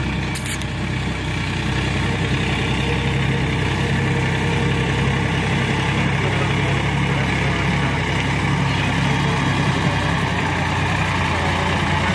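Sonalika tractor's diesel engine running steadily as it pulls a loaded trailer of sand, growing a little louder as it approaches.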